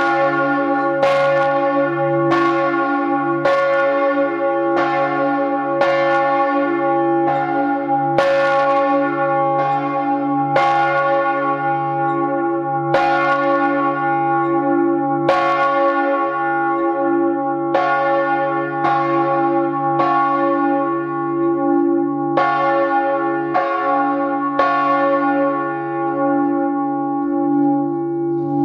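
The great Michael bell, a bronze church bell cast in 1950 by Georg Hofweber of Regensburg, swinging full and struck by its clapper about once every second and a bit. Each stroke rings out over a steady deep hum that carries on between strikes, heard close up inside the belfry. This is the Vorläuten, the pre-ringing that calls to Sunday Mass.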